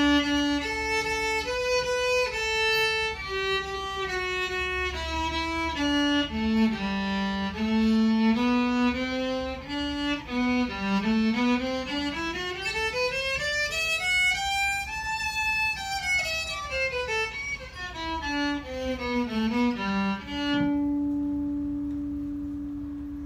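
Old Japanese electric violin, plugged in through its output jack, bowed in a slow melody of held notes. About ten seconds in it climbs in a long run up and back down, then it ends on a long low note that rings on and fades away.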